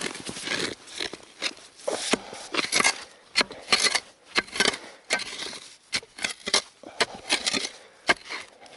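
Snow and frozen earth crunching and scraping in a run of irregular short strokes, several a second in places.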